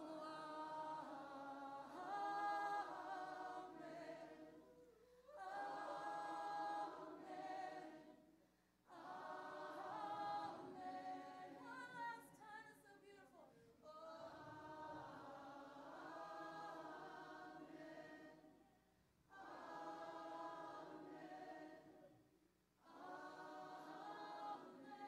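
A congregation singing together a cappella in worship, in long held phrases of a few seconds each with short pauses for breath between them.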